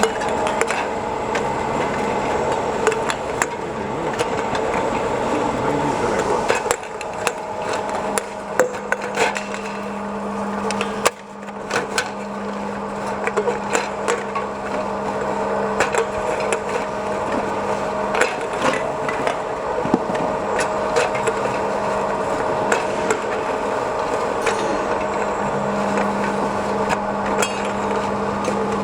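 Aluminium can washing machine running: a steady machine hum with frequent sharp metallic clinks and knocks, irregularly spaced.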